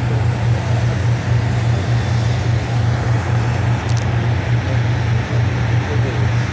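Multirotor drone's motors and propellers running with a steady, loud low hum, over an even rushing noise.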